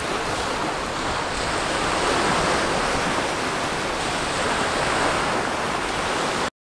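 Steady rushing of waves washing in, swelling and easing slowly, cut off sharply just before the end.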